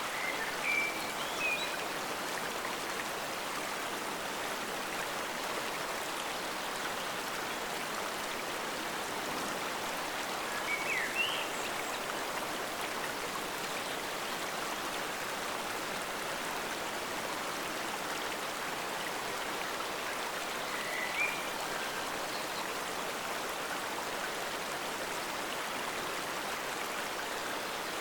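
Forest stream water flowing steadily, a continuous even rush, with a few brief high chirps scattered through it.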